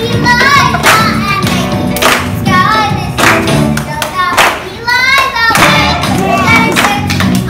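A child singing a song over music, with hand claps.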